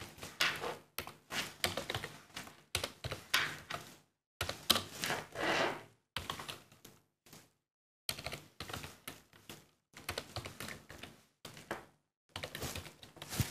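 Typing on a computer keyboard: runs of quick key clicks, broken by short pauses.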